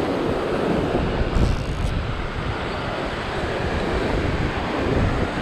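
Ocean surf surging and breaking over coastal rocks, a steady wash of water, with wind on the microphone.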